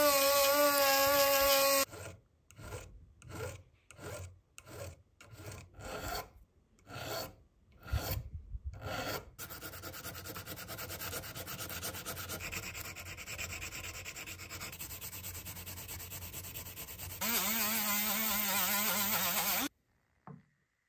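Handheld rotary tool whining as its bit polishes a brass wing nut, for about the first two seconds. Then sandpaper rubbed by hand over the brass: about a dozen separate strokes, then a steady rub. A motor whine returns near the end, followed by a small click as the part is set down.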